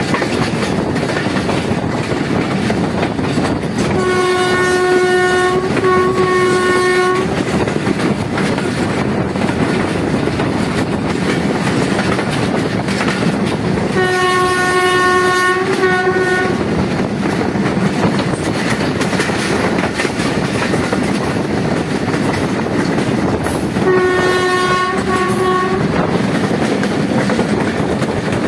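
Passenger train running along the track, heard from the open side of a coach, with steady wheel-on-rail noise. The diesel locomotive's horn sounds three times, about ten seconds apart: each time a long blast that breaks briefly into a shorter second one.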